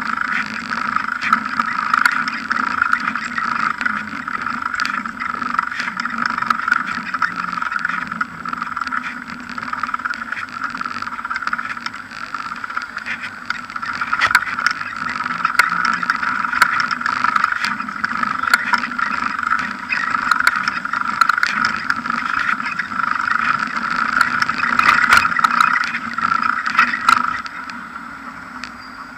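Knobby mountain-bike tyre rolling over paving slabs, a steady hum with frequent small knocks and rattles as the bike crosses joints and bumps. It gets quieter near the end.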